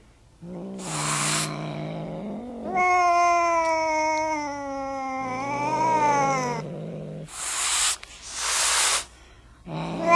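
Domestic cat yowling in long, wavering cries, with a low growl and a short hiss about a second in and two more hisses near the end.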